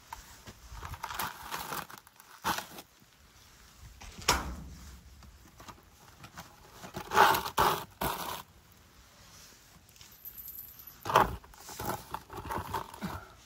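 Irregular rustling, crinkling and scraping of someone cleaning up by hand, with sharper louder clatters about four, seven and eleven seconds in.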